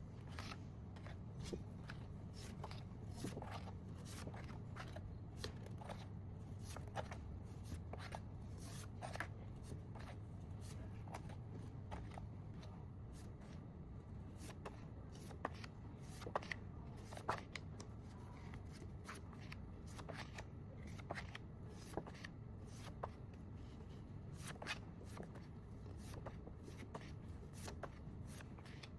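Paper and plastic stationery packaging being handled: rustling and crinkling with many small taps and clicks, over a faint low hum.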